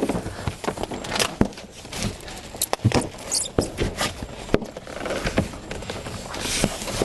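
Handling of a boxed evaporative cooling fan as it is turned over: irregular knocks, scuffs and rustling of cardboard with sharp taps scattered throughout.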